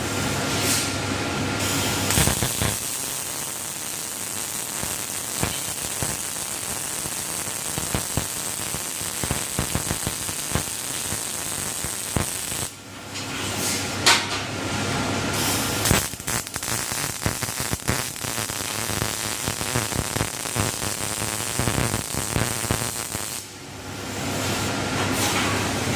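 Robotic arc welding on rectangular steel pipe: a steady crackling hiss of the welding arc. The arc stops briefly about halfway through and again near the end.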